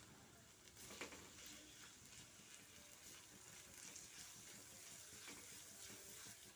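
Faint sizzling and crackling of chopped onions frying in hot oil in a kadai, with a small click about a second in.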